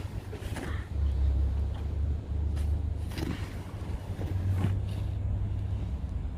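Wind buffeting the microphone as a low rumble, strongest in the middle, with a handful of brief scrapes or crunches on top.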